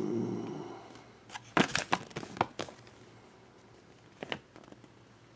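Crinkling and several sharp crackles of plastic packaging handled by hand as a blind-bag toy is unwrapped. The crackles come in a cluster about a second in, with one more near the end.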